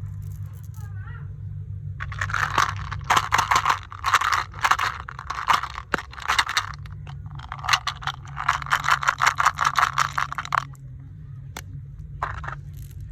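Candy packaging being handled: crackly crinkling and rattling in three long bursts, then one short burst near the end, over a steady low hum.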